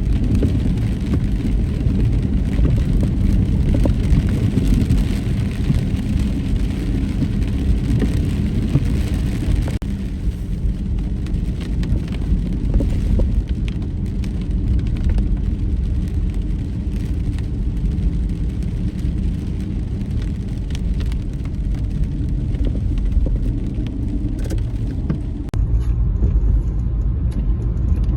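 Steady low rumble of a car on the move, engine and road noise, with the sound changing abruptly twice where the footage is cut.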